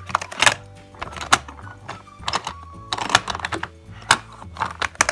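Irregular clicks and clacks of plastic toy parts being handled and moved on a Fisher-Price Little People car wash and repair shop playset.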